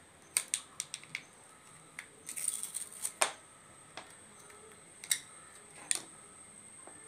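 Sharp small clicks and taps of hard plastic, with a short crinkle of plastic packaging a little after two seconds in, as a small super glue tube is taken from its blister pack and handled.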